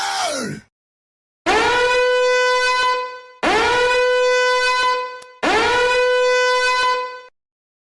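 Three identical long horn blasts from a sound-effect clip, each about two seconds, swooping up into one steady, brassy held note. Just before them, the tail of another effect slides down in pitch and stops.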